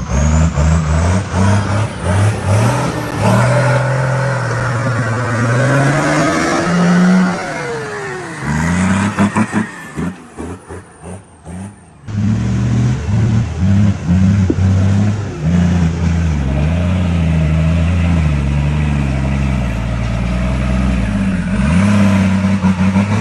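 Troller 4x4's engine revving and labouring off-road, its pitch rising and falling with the throttle. The sound drops away for a few seconds about ten seconds in, then comes back suddenly and carries on running.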